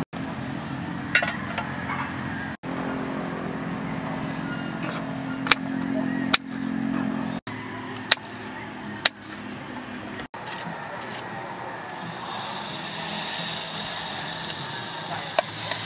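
Separate sharp knocks, including a knife chopping garlic on a wooden cutting board, then from about twelve seconds a steady hiss as butter goes into a hot aluminium pot on a butane camp stove.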